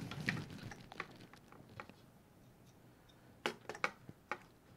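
Light metallic clicks and clinks of crescent wrenches being handled and set on the nuts of a cable strain relief, with a quick group of sharper clicks about three and a half seconds in.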